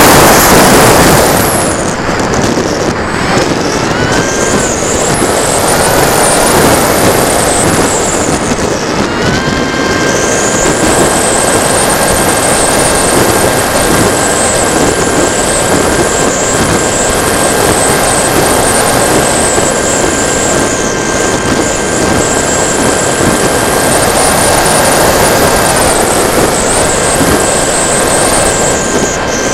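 Wind rushing over the onboard camera of a TechOne Mercury FPV foam plane in flight, with the whine of its electric motor and propeller rising and falling with the throttle. The rush is loudest in the first couple of seconds; about nine seconds in the whine settles into a steady tone, which dips briefly near the end.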